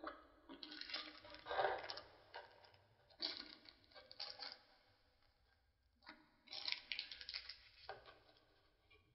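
Packaging of a new speedlight being handled and opened: irregular rustling with small clicks, in three spells with short quiet gaps between them.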